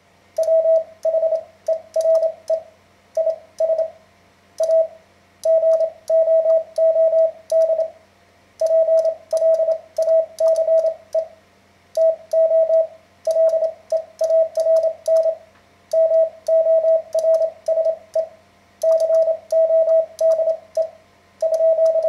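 Morse code sent on an iambic paddle key: a single steady mid-pitched sidetone keyed in quick dits and dahs, run together into letter and word groups with short pauses between them. The paddle's contacts click faintly with the elements.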